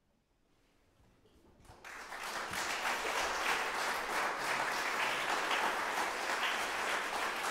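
Near silence, then an audience breaks into applause about two seconds in and keeps clapping steadily.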